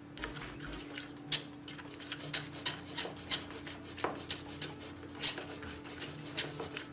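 Plastic stick stirring slime thickened with laundry-detergent activator in a silicone cup: soft rubbing and scraping with irregular little sticky clicks.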